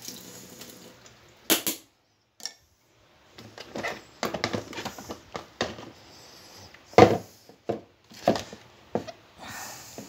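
Plastic blender jugs and a sieve being handled on a granite countertop: a string of irregular knocks, clunks and taps, the loudest about seven seconds in, with a short quiet gap about two seconds in.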